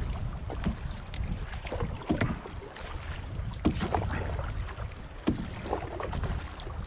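Canoe paddles dipping and pulling through river water, with irregular splashes and drips off the blades, over a low rumble of wind on the microphone.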